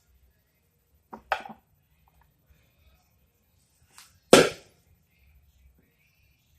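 Wooden-handled hand tools set down on a wooden bench board: a short clatter of light knocks about a second in, and one sharp knock a little after four seconds, the loudest sound.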